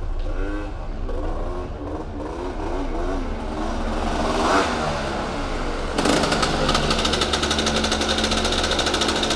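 Two motor scooters riding up, their small engines' pitch rising and falling with the throttle. About six seconds in the sound jumps louder as the nearest scooter arrives and runs close by.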